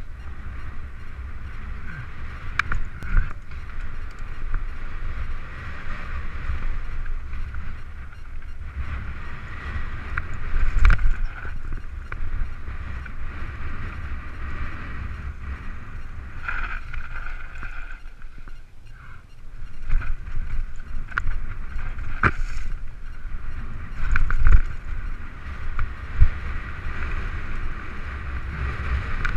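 Mountain bike riding down a rough dirt singletrack: wind buffeting the camera microphone and tyre noise over dirt, with several sharp knocks and rattles from bumps in the trail.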